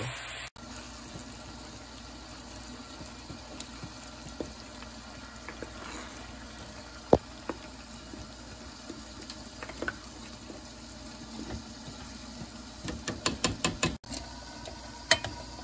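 A spoon stirring a pot of moist yellow rice that is nearly done, with scattered clicks of the spoon on the pot and one sharp knock about seven seconds in. Near the end comes a quick run of knocks, then a steaming pot of green beans is stirred.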